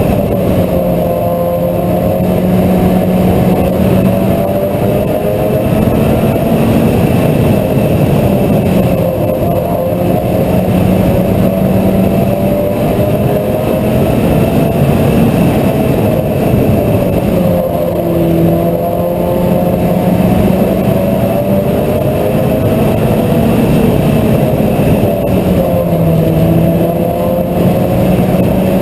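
Mini stock race car engine running hard during a race. Its pitch rises and falls about every eight seconds as the driver gets on and off the throttle.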